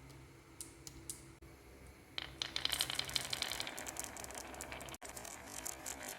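Marbles rolling down a wooden HABA marble run's slopes and downspouts: a few separate clicks at first, then from about two seconds in a dense, continuous clatter of marbles on wood.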